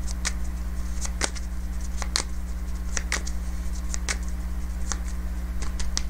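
Tarot deck being shuffled by hand: a series of irregular sharp card clicks and snaps, over a steady low hum.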